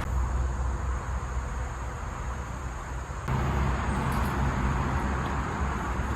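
Steady outdoor rushing noise over a low rumble, growing louder about three seconds in.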